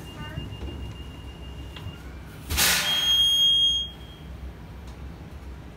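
City bus at a stop with its doors open: a steady high electronic beep sounds for about two seconds, then about two and a half seconds in a loud rush of air hiss lasts over a second, with a higher beep tone over it.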